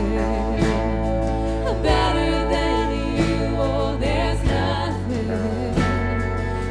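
Contemporary worship song: band music with a voice singing the melody over sustained low notes.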